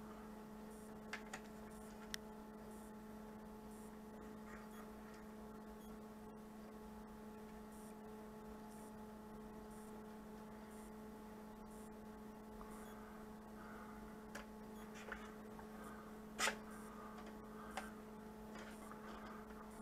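Steady electrical hum, with a few faint clicks and rustles from handling a small wire plug and the quadcopter frame; the sharpest click comes about three-quarters of the way through.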